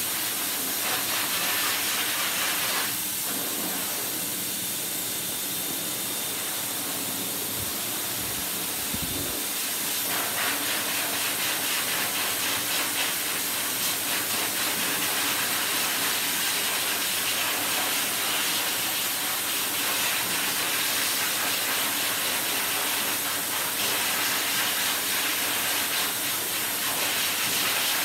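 Dog grooming blower dryer blowing a steady rush of air through its hose nozzle. A few seconds in, the hiss dulls for several seconds, then brightens again.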